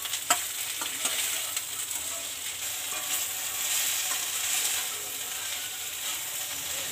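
Slit okra frying in mustard oil in a stainless steel kadhai on a low flame: a steady sizzle, with a spatula stirring and a couple of sharp clicks of the spatula against the pan in the first second.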